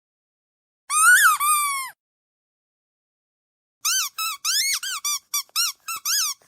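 Squeaky dog toy squeezed: one long squeak, about a second long, that rises and then falls in pitch, then after a pause a quick run of about ten short squeaks.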